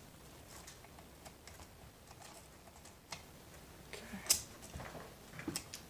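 Faint scattered clicks of a chainsaw chain and saw parts being handled on a workbench, with one sharper click about four seconds in and a few more after it.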